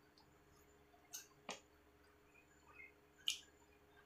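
Faint, wet chewing and mouth sounds of someone eating rice and curry: a few short, sharp smacks, the loudest about three seconds in.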